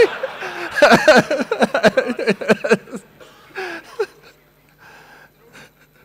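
Men laughing and talking indistinctly, dying down after about three seconds to a low murmur of faint voices.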